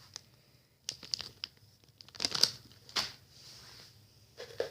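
Plastic packaging of soft-plastic tube baits crinkling and rustling as it is handled, in several short irregular spells.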